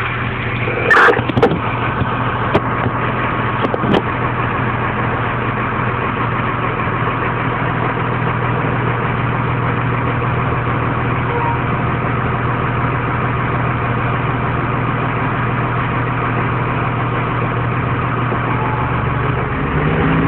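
Fire engine's engine idling steadily, with a few sharp clicks in the first four seconds.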